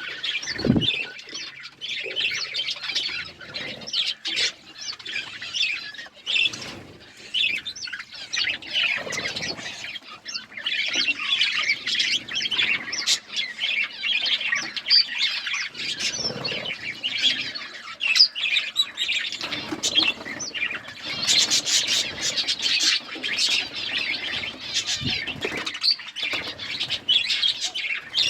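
Several budgerigars chattering and chirping without a break, a busy warble of short high chirps and squawks, with a few low thumps mixed in.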